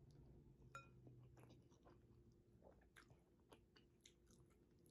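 Faint, close chewing of 2x spicy instant noodles, with soft wet mouth clicks scattered through, over a low room hum. A brief ringing tap, like a fork touching the glass bowl, comes just under a second in.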